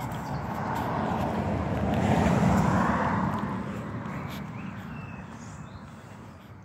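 A car driving past on the road, its engine and tyre noise swelling to a peak about two and a half seconds in, then fading away.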